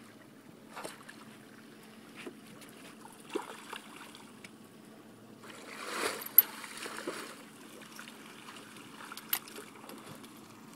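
A salmon splashing and thrashing in a landing net at the water's surface for a second or two about halfway through, with a sharp knock in the middle of it. A few scattered clicks of fishing gear, and the steady low hum of the boat's motor underneath.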